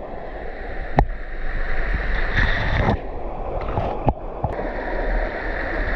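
Shallow rocky stream running over stones, a steady rush of water. Two sharp clicks cut through it, about a second in and again about four seconds in.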